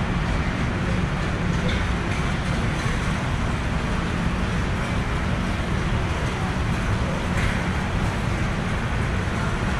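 Steady factory-floor background noise: a continuous low rumble with hiss, broken only by a couple of faint knocks.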